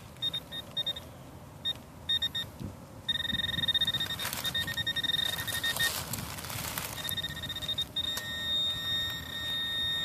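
Garrett pinpointer probe beeping at one fixed pitch as it is worked through loose soil in a dig hole. It starts as short separate beeps, speeds into rapid beeping about three seconds in, and becomes a nearly continuous tone over the last few seconds as the probe closes in on a buried metal target.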